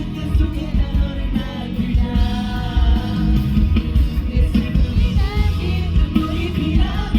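A live pop-rock band song with a male lead vocal, sung over drums and bass through a concert sound system.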